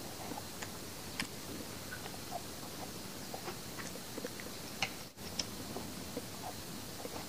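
A young child eating from a plate with a small spoon: faint, scattered clicks of the spoon and chewing over a low steady hiss.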